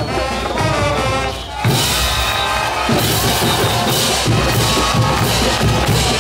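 Parade band music with bass drum and snare keeping a steady beat. It turns fuller and louder with drums and cymbals about a second and a half in.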